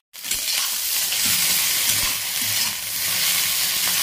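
Cut okra frying in hot oil in a metal pan, a steady sizzle, while a flat metal spatula stirs and scrapes it around the pan.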